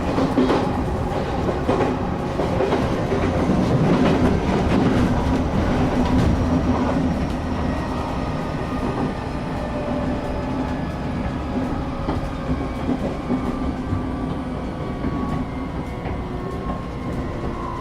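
Cabin noise of a moving electric train: a steady rumble of wheels on the track. In the first few seconds there are clacks from the wheels crossing rail joints, and in the later part a faint, shifting motor whine rises over the rumble.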